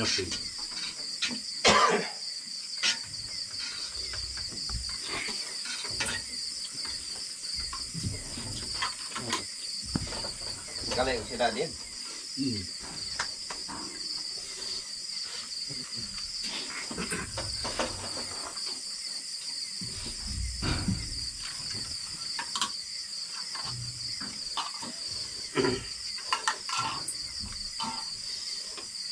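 Steady high-pitched chorus of crickets trilling at night, with scattered light knocks and clinks of plates and a serving pot.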